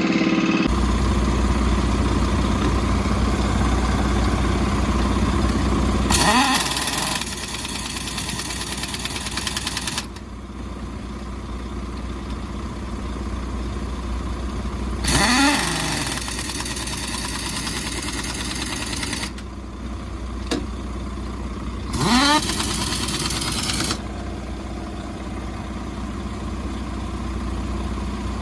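An engine running steadily, with four surges where it rises in pitch and grows louder for one to four seconds before settling back.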